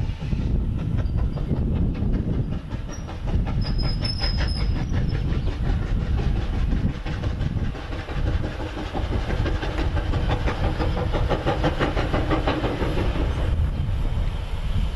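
Peppercorn A1 Pacific 60163 Tornado, a three-cylinder steam locomotive, running slowly along the line, with a steady rhythm of exhaust beats and wheel clatter.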